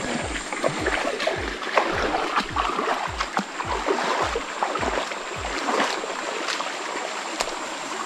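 Feet splashing through a shallow stream, with running water and irregular splashes. Under it a music track's low beat pulses about two and a half times a second, stopping about six seconds in.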